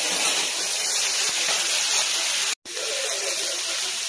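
Food sizzling on a thick iron teppanyaki griddle, a steady hiss that drops out abruptly for a moment about two and a half seconds in.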